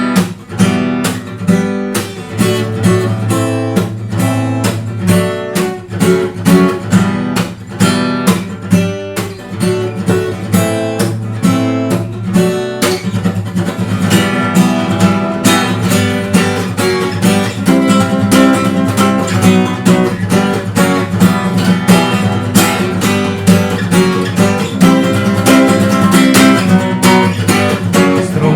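Acoustic guitar strummed in a steady rhythm of chords, the strumming growing busier about halfway through.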